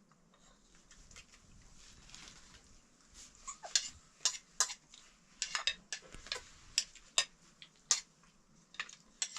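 Scattered sharp clinks and clicks of kitchenware being handled, irregular, starting about three seconds in.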